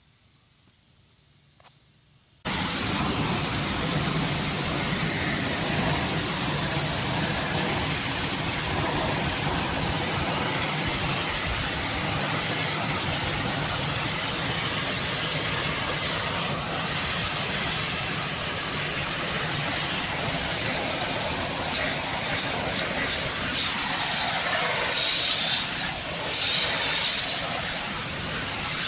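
Electric pressure washer running and spraying: a steady hiss of water jet and pump that begins abruptly about two and a half seconds in, after near silence, with a thin high whine over it.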